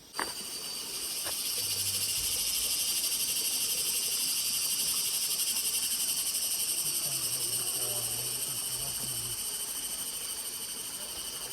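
Dense chorus of rainforest insects: a steady, high-pitched shrill with a fast pulsing. It starts suddenly just after the beginning and eases off slightly toward the end.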